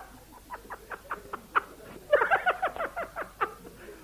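A person laughing in two quick bouts of rapid, rhythmic "ha-ha-ha" pulses, the second starting about two seconds in.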